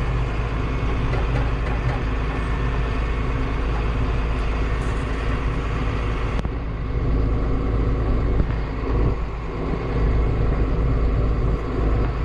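Combine harvester running while it harvests, heard from inside the cab: a steady engine and machinery drone with a constant low hum, a little louder and more uneven in the second half.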